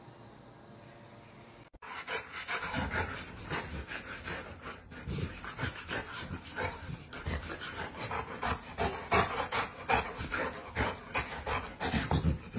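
A dog panting in quick, even breaths, about two to three a second. It starts suddenly about two seconds in and grows a little louder toward the end.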